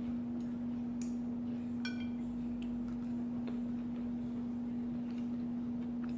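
A steady low hum throughout, with a few soft clicks of chopsticks and one light ringing clink against a dish about two seconds in.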